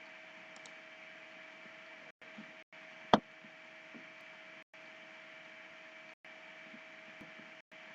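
Steady low electrical hiss and hum from the recording chain, with a couple of faint steady tones, cutting out briefly several times. A single sharp click comes about three seconds in.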